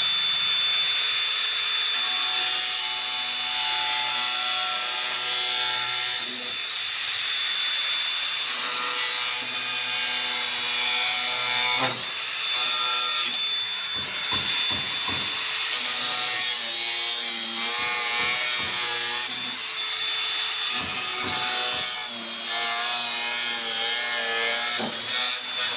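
Power tool cutting through a car's rear bumper: a continuous rasping cut over a steady high motor whine, its pitch shifting as the blade takes load.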